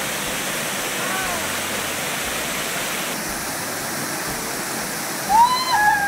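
Small waterfall pouring over boulders into a pool, a steady rush of falling water. A person's voice calls out briefly near the end, the loudest moment.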